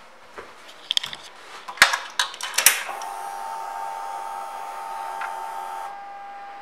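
A few sharp clicks as the key is turned in the ignition switch of a 2013 Kawasaki Vulcan Vaquero, then a steady electric whir as the ignition comes on, typical of the fuel-injection pump priming. The whir runs for about three seconds and drops off near the end to a faint steady whine.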